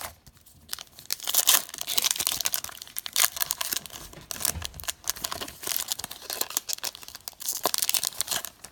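A foil trading-card pack being torn open and its wrapper crinkled, a dense crackling rustle that runs from about a second in until just before the end.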